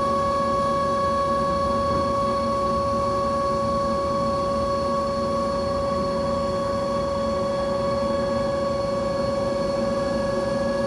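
Steady machine drone with a constant whine and a higher tone above it, holding an even level.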